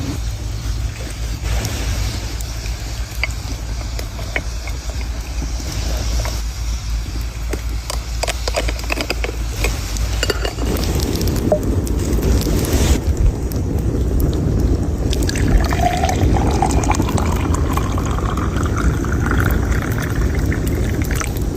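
Tea poured into a cup, the pitch of the pour rising as the cup fills, over a steady low rumble with scattered clicks and knocks in the first half.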